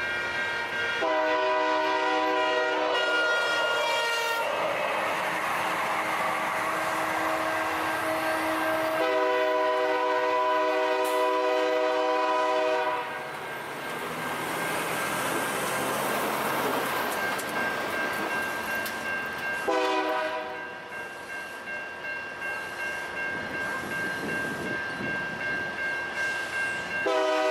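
Freight train's horn blowing several blasts: two near the start, a long one in the middle and a short one near the end, over the steady rolling noise of the passing train.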